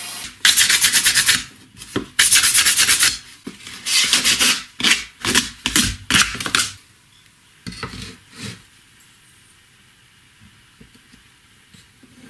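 A hand-held abrasive pad rubbed quickly back and forth over the cut edges of a PVC pipe, smoothing them after sawing. It comes in a string of scraping bursts that stop about seven seconds in, followed by a couple of soft handling knocks.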